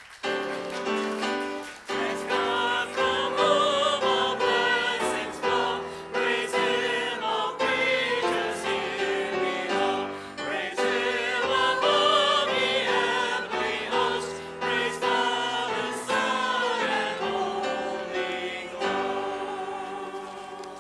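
Voices singing a hymn with instrumental accompaniment, starting suddenly and fading away near the end.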